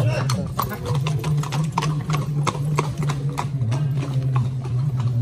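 Hooves of horses being ridden at a walk on a dirt road, an uneven clip-clop of several strikes a second, over a steady low hum.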